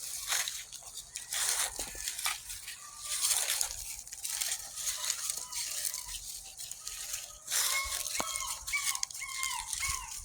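Puppies scrambling and playing in dry leaves, a steady rustling and crunching. About three-quarters of the way through, a puppy starts whining in a run of short high squeaks.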